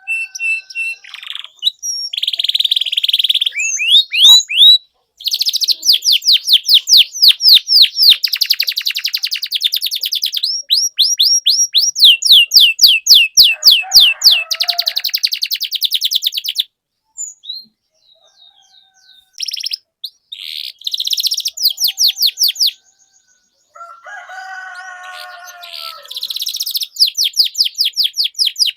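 Domestic canary in full song: long phrases of rapid, high trills made of fast repeated down-sweeping notes, broken by short pauses, with a brief lower warbling phrase near the end.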